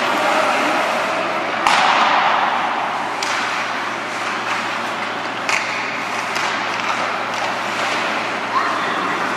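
Ice hockey play: a steady wash of skates on ice and rink noise, broken by several sharp clacks of sticks and puck. The loudest comes about a second and a half in and rings on briefly.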